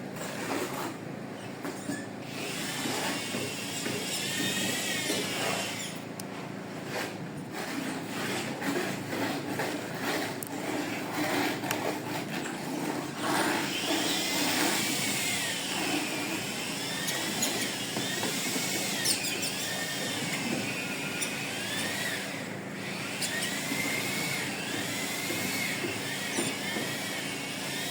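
Electric power tool running in tile work, its whine wavering up and down in pitch as the load changes, with knocks and clatter early on.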